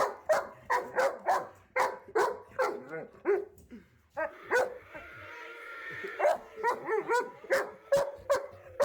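A dog barking over and over, about two barks a second, with a short break near the middle.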